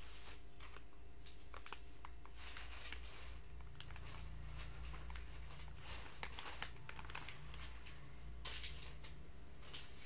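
Soft plastic wet-wipe packet crinkling and rustling as a baby handles it and pulls out a wipe, with faint scattered clicks over a steady low hum.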